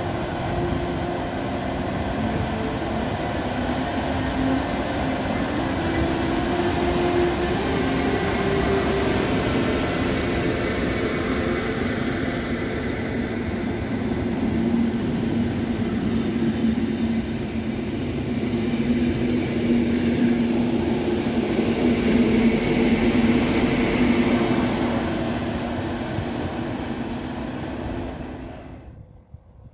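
Deutsche Bahn ICE S electric test train departing and running past on the platform track. Its running noise is steady, with a humming drive tone that shifts in pitch as it picks up speed. The sound cuts off suddenly near the end.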